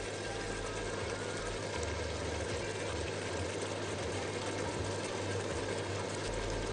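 Veal cubes and onions frying in oil in a large pot: a steady sizzle.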